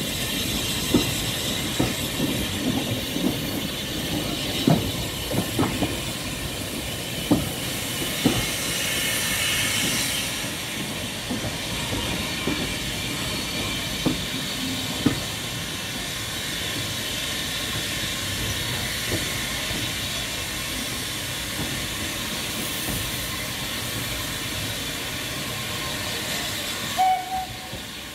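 Steam-hauled train running on the line, with a steady hiss of steam and irregular sharp knocks and clanks from the carriages, most frequent in the first half. A short high squeak comes near the end.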